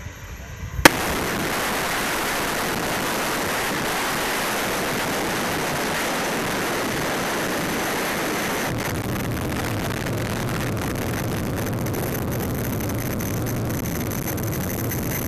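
Small model turbine engine (JetsMunt M70XBL) running, heard close up from the model jet's onboard camera: a loud steady rush with a thin high whine. About nine seconds in, a deeper rumble joins.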